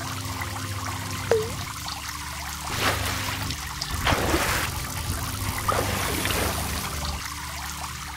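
Trickling water sound effects over a steady low hum, with a single droplet-like plop about a second in and two louder watery swells around three and four seconds.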